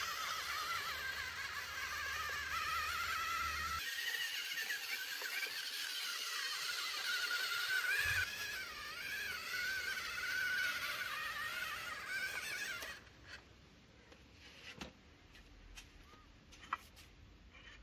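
Small electric motors of a radio-controlled construction model whining, the pitch wavering up and down as they work, stopping about thirteen seconds in; after that, a few light clicks and knocks.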